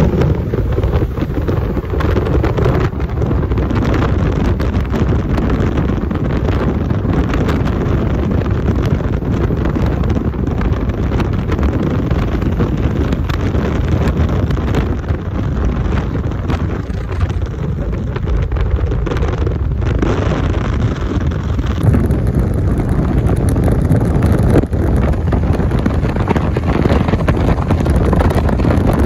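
Wind buffeting a phone's microphone while riding a motorbike at highway speed, a steady loud rush that covers the road and engine noise.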